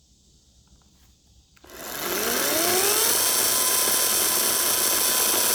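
Chainsaw coming up to speed: the motor climbs smoothly in pitch for about a second and a half, then runs steadily at full throttle with a high whine.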